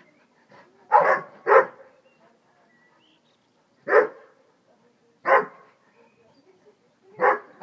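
A dog barking in short single barks: two in quick succession about a second in, one at about four seconds, one at about five seconds, and two more right at the end.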